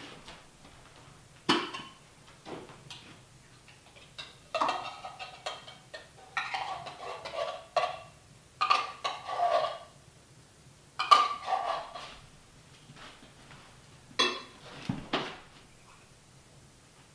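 Hard objects clattering and clinking as they are handled, in about seven irregular bursts, over a faint steady low hum.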